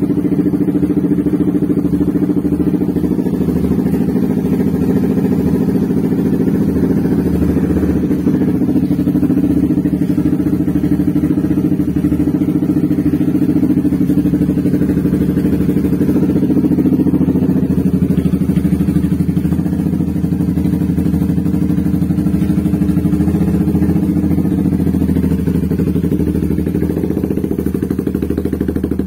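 Honda CBR150R's single-cylinder engine idling steadily through an aftermarket slip-on exhaust.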